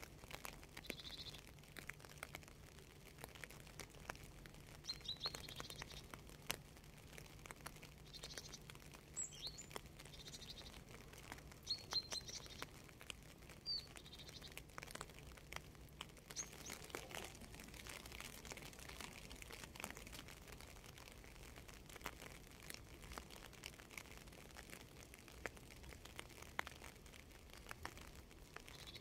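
Quiet rain ambience: scattered raindrop ticks, with birds chirping in short bursts, mostly in the first half and again near the end.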